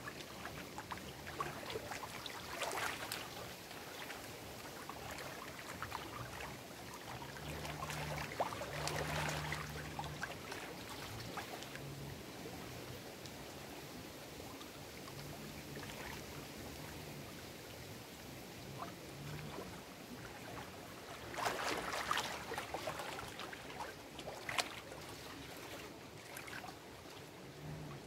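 Small lake waves lapping and splashing against shoreline rocks, with stronger splashes a few seconds in, around nine seconds, and twice more after twenty seconds.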